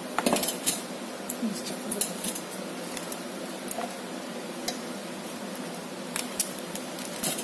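Scissors snipping the stalks off wet Malabar spinach leaves, with the leaves being handled on a wooden chopping board: a scattering of sharp, irregularly spaced clicks.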